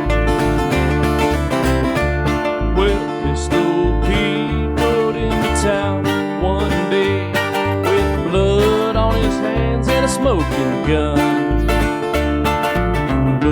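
Instrumental country music: plucked acoustic guitar over a steady bouncing bass beat, with a lead line that slides between notes about two-thirds of the way through.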